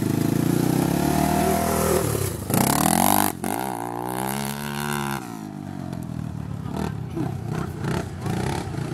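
Sport ATV (quad) engine revving and accelerating hard. It sweeps past close by about three seconds in, then drops in pitch and fades as it pulls away.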